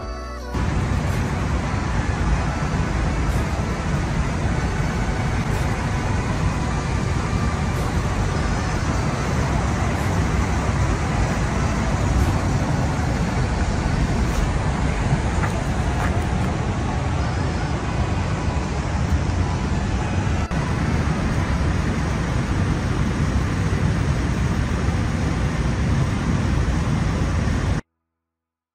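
Steady outdoor background noise, a low rumble with hiss, cutting off abruptly near the end.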